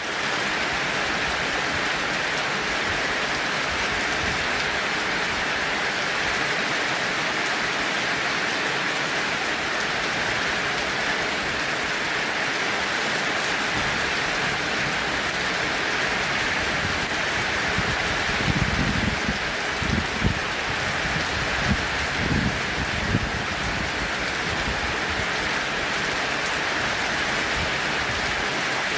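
Heavy rain falling in a dense, steady hiss. About two-thirds of the way in, a few seconds of low, uneven thumps and rumbles sound under the rain.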